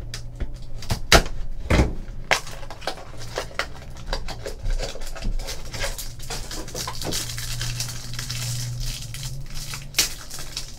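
A trading-card box being slit open with a box cutter and handled, with sharp clicks and taps, the loudest about one and two seconds in. Then crinkling plastic wrapping as a pack of cards is pulled out and handled.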